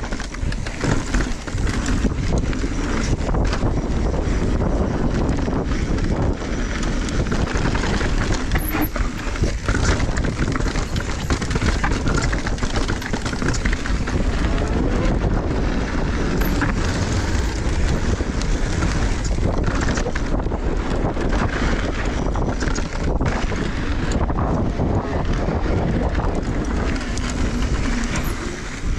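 Mountain bike ridden fast over dry dirt and rocky singletrack: wind buffeting the camera microphone over the rumble of knobby tyres, with frequent rattles and knocks from the bike over rocks and bumps.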